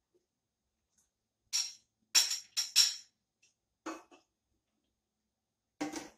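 Stainless steel kettle's lid clinking and rattling in a few short bursts as the kettle is tilted to pour, then a fuller knock near the end as the kettle is set down on the countertop.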